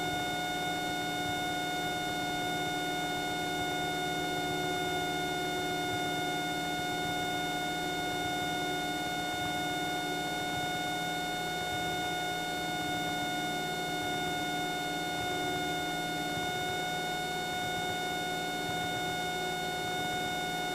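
Steady in-flight cockpit drone of a Cessna 172 single-engine light aircraft in its climb, with a steady high-pitched whine over it that does not change.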